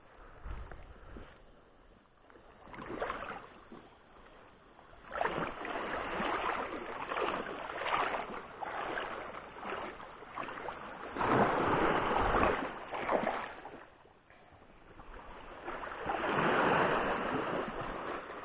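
Shallow seawater sloshing and splashing in irregular surges, some lasting several seconds, with quieter stretches between them.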